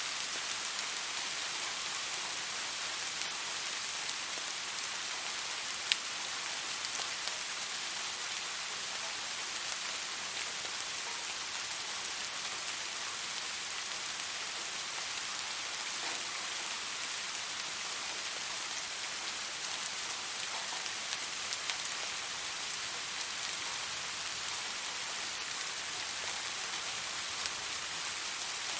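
Steady rain falling on a surface, an even hiss with scattered drop ticks and one sharper drop about six seconds in.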